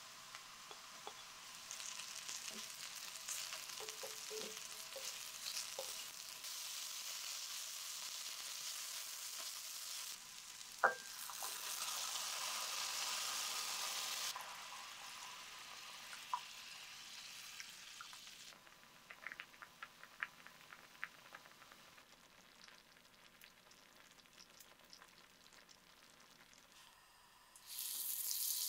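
Onions and mushrooms sizzling as they fry in a cast-iron pot, with a few light clicks of a utensil; the sizzle drops to a quieter bubbling once cream and milk are poured in. Near the end a loud sizzle starts suddenly as butter melts on a hot square pan.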